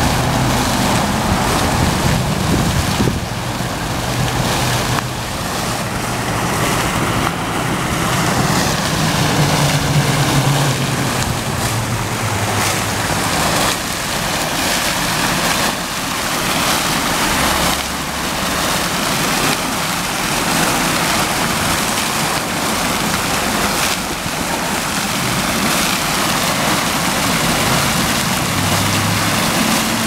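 Fountain water splashing steadily: a tall central jet and a ring of arcing jets falling into a round basin.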